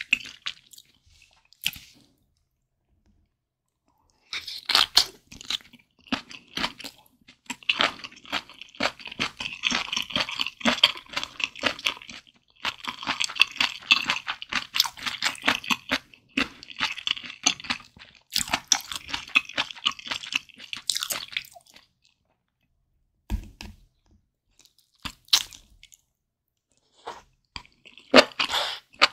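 Close-miked chewing of malatang with tofu skin and glass noodles, in spells broken by a few short silences.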